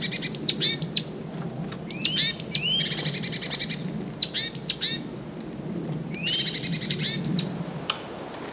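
A songbird singing repeated phrases, each made of quick, sharp, high down-slurred notes and a fast buzzy trill, with short pauses between phrases. A low steady rumble runs underneath.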